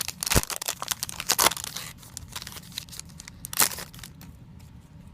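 Foil wrapper of a Yu-Gi-Oh booster pack being torn open and crinkled: a quick run of sharp rips and crackles over the first two seconds, one more loud crinkle about three and a half seconds in, then faint rustling.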